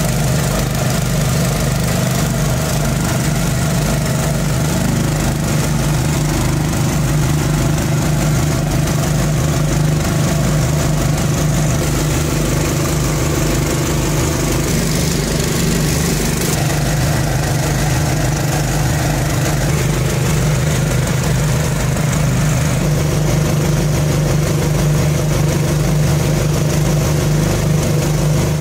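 Boat engine running steadily and loudly, a constant low hum with an even chugging pulse underneath, cutting off at the very end.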